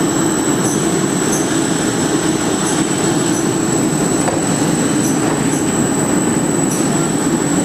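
Pneumatic hand-towel conveying system and its feeding regulator running: a steady, loud machine and air noise with a thin high whine over it and a few faint clicks.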